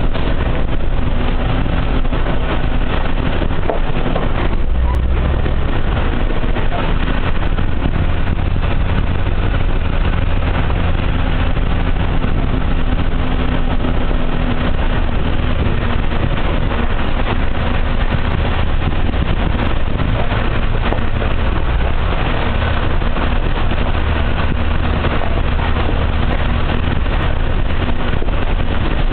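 Vehicle driving along a mountain road, heard from aboard: a steady low engine drone with road and wind noise.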